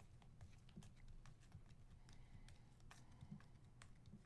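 Faint clicks and light handling sounds of Prizm trading cards being sorted through by hand, a few separate ticks spread over a few seconds above a low steady hum.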